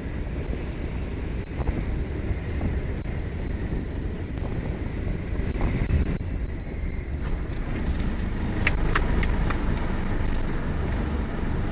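Steady rush of wind and rumble as a light plane, its engine dead, glides in and touches down on a road. A cluster of sharp clicks and knocks comes about eight to nine seconds in, and the rumble grows a little louder from then on.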